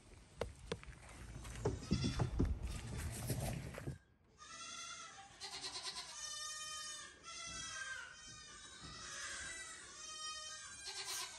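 A low rumble with a few sharp clicks, which cuts off abruptly about four seconds in. Then goats bleating over and over, one pitched bleat after another.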